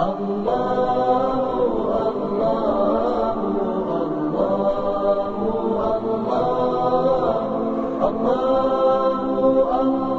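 Wordless a cappella vocal 'aahs' in the Arabic chant style: long sustained sung notes that bend and ornament in pitch, with new phrases entering about every two seconds.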